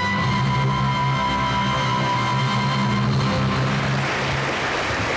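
A children's choir and its accompaniment end their song on a long held chord, with a low bass line under it. The chord dies away three to four seconds in, and audience applause takes over.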